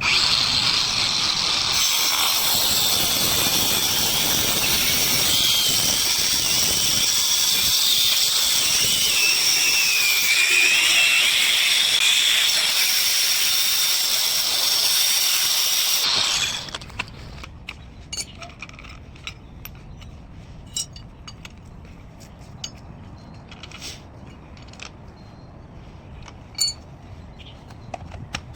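Pole-mounted angle grinder running with a loud high whine, its pitch wavering as the disc meets the work; it cuts off a little over halfway through, leaving light scattered clicks and taps.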